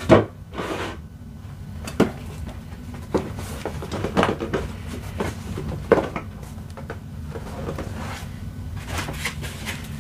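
Knocks and handling noise as an RC jet boat's hull and its boat stand are set down and fitted together on a table. The sharpest knocks come at the very start and about two, three and six seconds in. Near the end there is a crinkle of packing paper.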